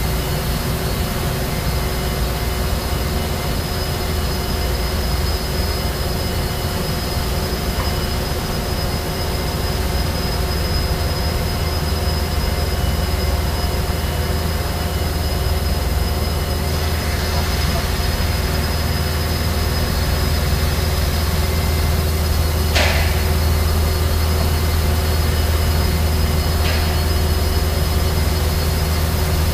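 ESCO PM III 1530 abrasive fast-wire CNC profile saw running steadily while it cuts a dense polyisocyanurate (PIR) foam block: a low hum with several steady whining tones over a noisy hiss. A couple of short sharp hisses come near the end.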